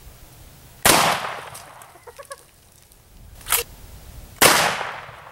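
Two loud gunshots about three and a half seconds apart, each followed by a trailing echo. A shorter, sharper click comes about a second before the second shot.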